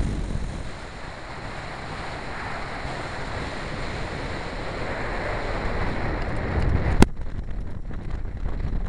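Airflow buffeting the microphone of a wing-mounted camera on a weight-shift microlight trike gliding in with its engine switched off, so only wind rush and no engine is heard. The rush slowly grows louder, a single sharp knock comes about seven seconds in, and after it the noise is duller and lower.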